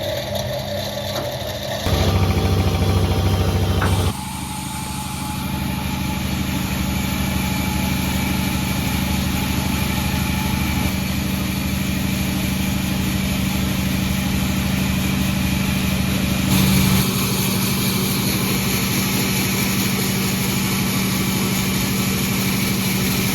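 A sawmill's engine running steadily, its sound changing abruptly about two seconds in, again about four seconds in, and near the end.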